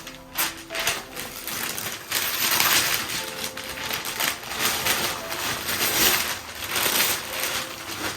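Gift wrapping paper being torn open and crumpled. It starts as a few scattered crackles and becomes a dense, continuous crinkling from about two seconds in.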